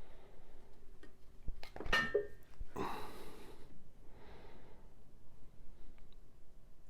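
Bengal cat sniffing and snuffling close to the microphone, in several short breathy bursts, with a brief squeaky sound and a couple of light knocks.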